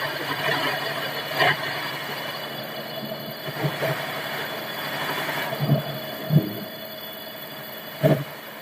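Sawmill machinery running with a steady hum, broken by five short knocks, and slowly fading.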